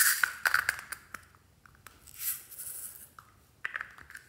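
A small ornate gold plastic trinket box being handled and closed, making a run of sharp clicks and scrapes, loudest at the start, with a short hiss about two seconds in and a few more clicks near the end.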